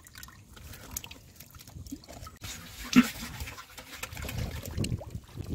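Muddy water trickling and splashing in a shallow pool, with small scattered clicks and a single loud, sharp splash about three seconds in.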